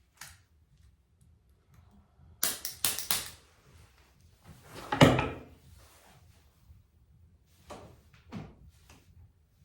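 A quick run of sharp clacks, then one louder thump halfway through, followed by two softer knocks near the end.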